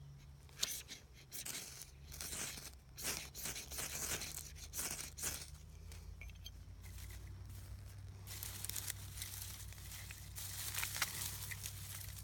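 A ferrocerium rod struck over and over with a striker to throw sparks onto tinder: a run of irregular short rasping scrapes, with longer scrapes in the second half.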